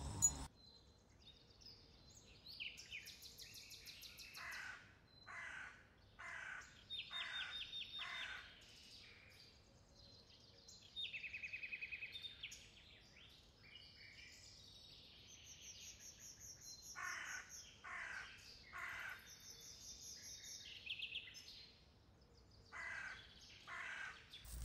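Wild birds calling in open countryside: groups of harsh, evenly spaced calls, four in a row about 4 to 7 seconds in, three more around 17 to 19 seconds and two near the end, between quick high trills and chirps. A short click sounds right at the start.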